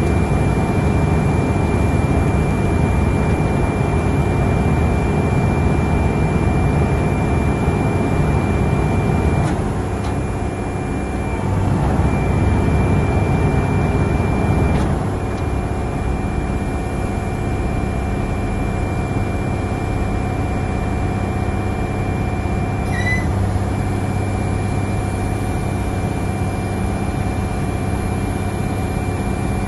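Wirtgen W220 cold planer's diesel engine running steadily, with a thin high whine over it that drops out briefly a few times. The engine note shifts about a third of the way in and again about halfway, as the discharge conveyor is moved hydraulically.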